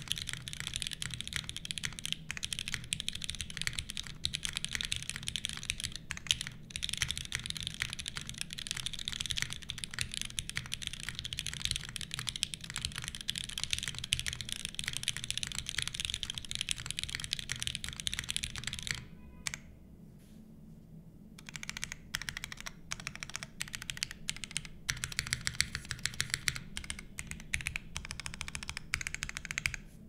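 Fast, continuous typing on a plateless Seis Cero mechanical keyboard fitted with Cherry MX Black linear switches (hyperglide, diamond-polished) and GMK keycaps. The typing stops for about two seconds roughly two-thirds of the way through, then resumes.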